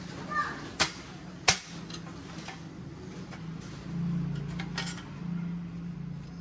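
Sharp metallic clinks and knocks from a steel motorcycle rear box bracket and its box mounting plate being handled and shifted against each other, the loudest about a second and a half in. A low steady hum runs underneath.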